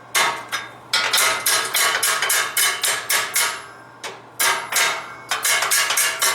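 Hammer striking steel in quick runs of about four to five ringing blows a second, with a short pause a little past halfway before the hammering resumes.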